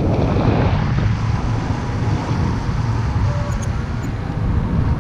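Steady wind buffeting the camera microphone in flight under a paraglider: a low, rumbling rush of air.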